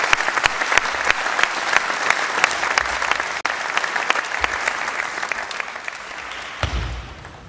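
Hall audience applauding, a dense patter of many hands clapping that thins out and dies down over the last couple of seconds.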